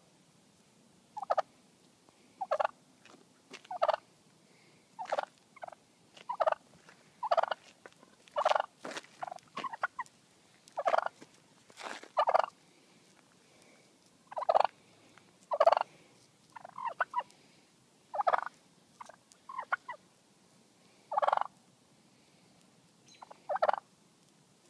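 A wild turkey tom calling over and over at close range: short, loud calls every second or two, some coming in quick runs of two or three.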